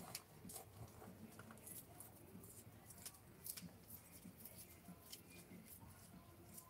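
Faint rustling and scattered small clicks of hands handling plants and soil in a wheelbarrow.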